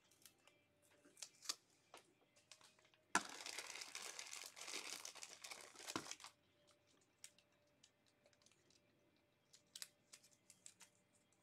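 Plastic wrapping crinkling as it is handled, starting suddenly about three seconds in and lasting about three seconds, with light clicks and taps of handling before and after.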